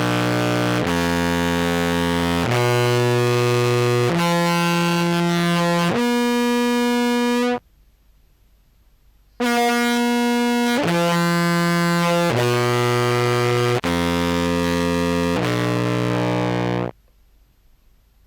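Contrabass clarinet played through fuzz pedals, heavily distorted and buzzy. It plays two phrases of held notes: a stepwise climb of about five notes, a pause, then a stepwise descent of about five notes.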